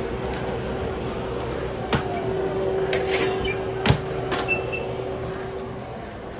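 Metal knocks and clanks from a TurboChef speed oven's door and metal tray as a sandwich goes in, the loudest about four seconds in, over a steady hum that stops near the end. A short high beep comes between them.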